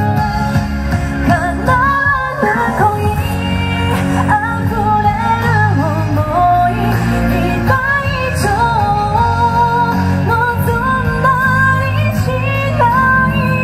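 A woman singing a pop song into a microphone over instrumental accompaniment, amplified through stage speakers.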